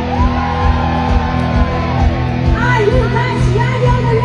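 Heavy metal band playing live through a venue PA: electric guitars and drums, with a woman's singing voice at times.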